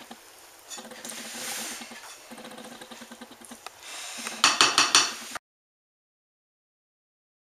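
Hand mixing flour, egg yolks and melted butter in a glass bowl, a soft rubbing and stirring noise. About four seconds in comes a quick run of about five sharp clinks, the loudest part, and then the sound cuts off suddenly.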